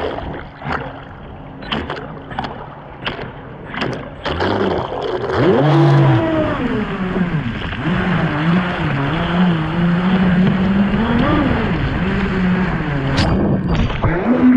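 A boat motor running with its pitch rising and falling as the throttle changes, over rushing water. It follows a handful of sharp knocks and splashes in the first four seconds.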